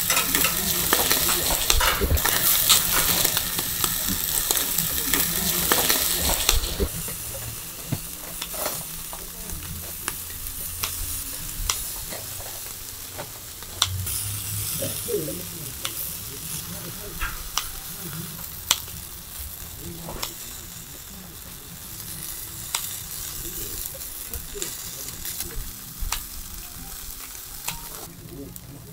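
Freshwater eel fillets sizzling on a metal grill grate, with sharp clicks and scrapes of a spatula and tongs against the grate as the pieces are turned. The sizzle is loud for the first six or seven seconds, then drops to a softer sizzle for the rest.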